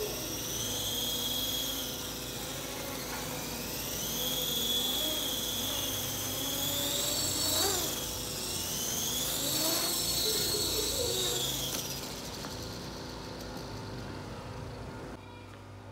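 Electric motor and rotor whine of a 3D-printed fixed-pitch RC helicopter, from its brushless main and tail motors. The pitch rises and falls three times as the throttle is worked, then fades away about three-quarters of the way through. This is a first lift-off attempt in which the tail rotor gives too little torque compensation.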